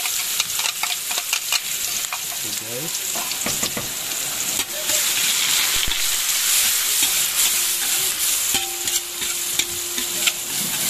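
Food frying and sizzling in a pan while being stirred: a steady hiss with scattered crackles and pops.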